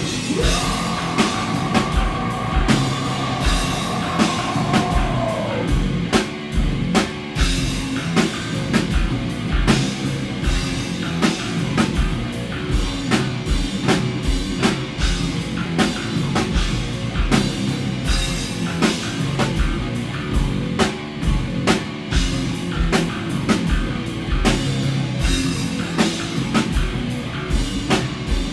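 Hardcore band playing live, with a drum kit beating steadily under guitar. A high held note rings for the first few seconds and slides down at about five seconds in.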